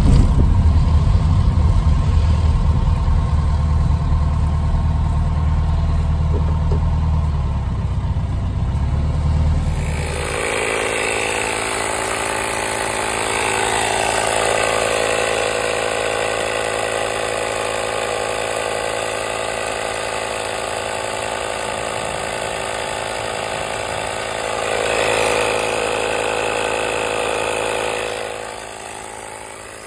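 For about the first ten seconds, a classic VW Beetle's air-cooled engine and road noise are heard from inside the cabin while driving. The sound then cuts to a portable tyre inflator's small electric piston compressor, running steadily as it pumps up the Beetle's front tyre, louder for a few seconds shortly before the end.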